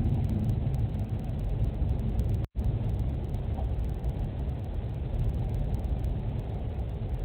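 Steady low rumble through a home security camera's microphone, with the sound cutting out for a moment about two and a half seconds in.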